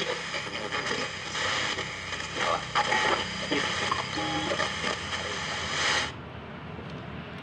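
Asatron two-battery portable FM radio playing a station through heavy hiss, with broken fragments of broadcast voice. It shows the set's fault of weak, raspy sound. About six seconds in, the hiss cuts off abruptly and a quieter low hum remains.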